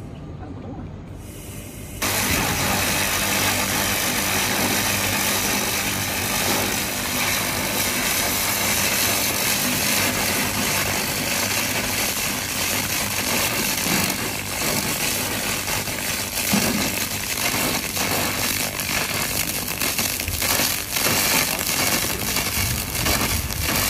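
3000 W handheld laser cleaning head firing on a painted metal workpiece, stripping the paint off: a loud, steady hissing buzz with crackle, starting suddenly about two seconds in.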